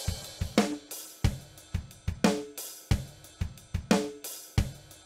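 Intro music made of a drum-kit beat, opening with a cymbal crash, with a pitched drum hit that slides down in pitch recurring a little under every two seconds.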